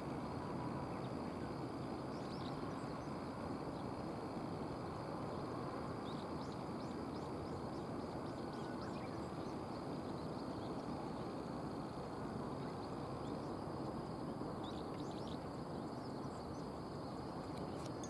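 A steady low rush of outdoor background noise, with short, thin, high chirps of small birds scattered through it, several coming close together near the end.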